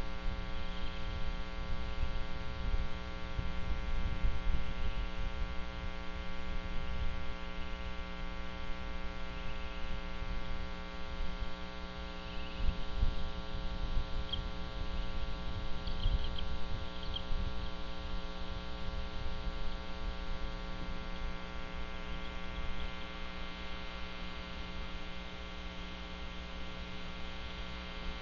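Steady electrical mains hum with a buzzy stack of tones in the nest camera's audio, over a low uneven rumble. A few faint, short high chirps come through about halfway.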